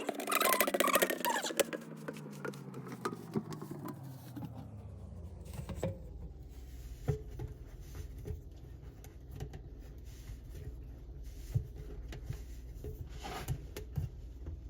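Scattered small clicks and knocks of parts being handled, over a steady low hum that comes in about five seconds in as a falling tone fades away.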